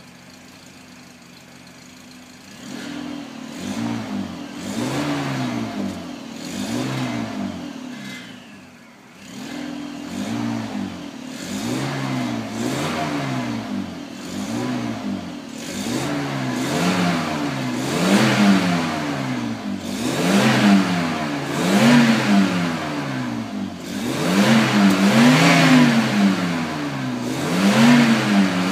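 Volkswagen Corrado G60's supercharged 1.8-litre four-cylinder engine, heard from the exhaust, idling for about two seconds and then free-revved in repeated blips about once a second, each rising and falling back, the blips getting stronger toward the end.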